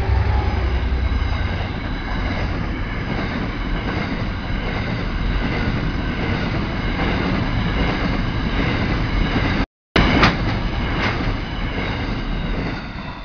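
A freight train passing close by: the locomotive's engine note fades within the first second or two, leaving the steady rumble and clatter of empty coal wagons rolling past. The sound drops out for a moment about ten seconds in, a few sharp clanks follow, and it falls away near the end as the last wagons go by.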